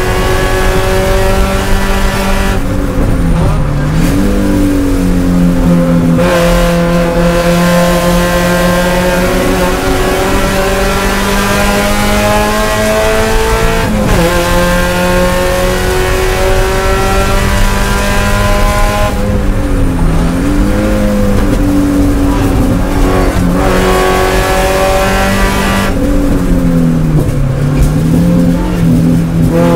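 Spec Miata race car's four-cylinder engine heard from inside the cockpit, running hard at high revs with its pitch slowly climbing under throttle. The pitch drops and swings back up a few seconds in, around twenty seconds in and near the end, as the car lifts and downshifts for corners.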